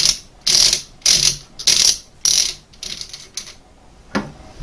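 Remington 870 Express shotgun's magazine cap being unscrewed by hand, ratcheting against its detent in about five raspy bursts roughly every half second, then a single sharp click near the end.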